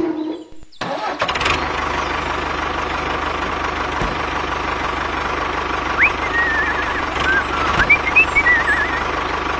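Tractor engine running with a steady low knock, coming in about a second in after a brief drop in sound. From about six seconds, high warbling chirps sound over it.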